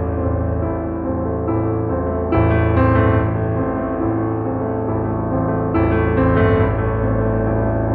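Background music: a keyboard piece of sustained piano chords with a bass note, changing chord about every three and a half seconds.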